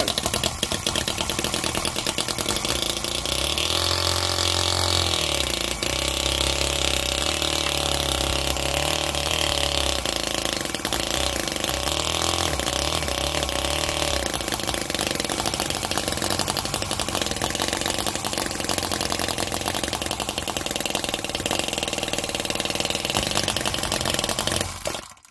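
OKMO R30 1:5-scale Harley-Davidson Panhead V-twin model petrol engine running after a cold start on the first pull of the rope starter. Its speed rises and falls over the first dozen seconds, then it runs steadily until it cuts out suddenly near the end.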